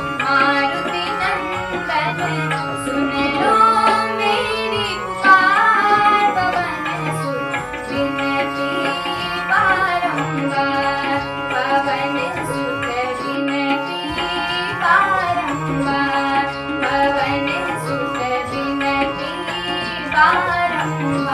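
Instrumental Indian devotional bhajan music: a bending melodic line over a steady hand-drum rhythm, with no singing.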